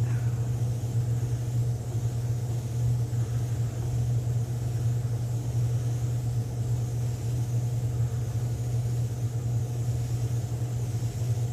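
Steady low hum of a spray booth exhaust fan running, with a faint high hiss over it.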